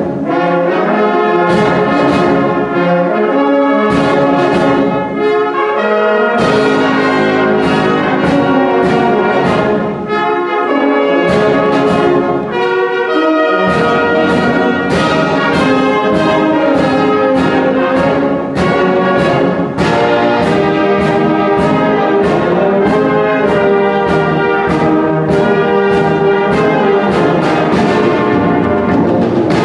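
Brass band playing: trumpets, horns, baritones and tubas in full chords over a drum kit keeping the beat. The bass line drops out for short stretches in the first half and then plays on fully.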